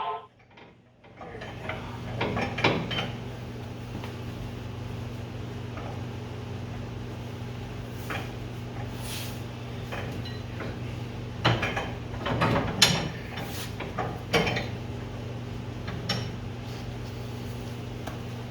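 Scattered metal clanks and scrapes of hand tools working the threaded rod and nut of a coil spring compressor, over a steady low hum.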